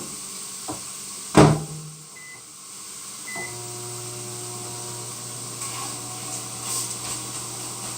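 A microwave oven door is shut with a knock, two short keypad beeps follow, and then the microwave starts running with a steady hum, defrosting hamburger meat.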